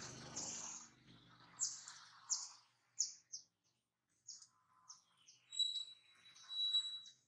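Birds calling: a run of short, high, falling chirps, then a thin steady whistle held for over a second near the end.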